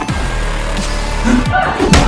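Dramatic background music with a sudden hard hit near the end, a punch or impact sound effect as a fight breaks out.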